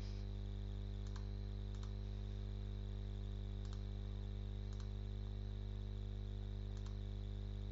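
Steady electrical hum from the recording setup, with a handful of faint, sharp computer mouse clicks spread through it.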